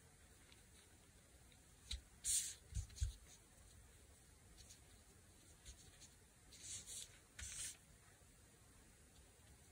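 Fabric and paper scraps handled and shifted on a tabletop: brief rustles about two seconds in and twice more around seven seconds, with a couple of soft taps just before three seconds.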